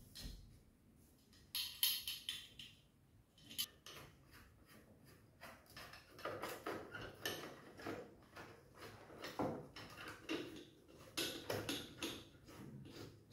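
Light metallic clicks, taps and scrapes of aluminium window-frame parts being handled and fitted together, with a hand screwdriver working at the frame corner. The clicking grows busier from about six seconds in.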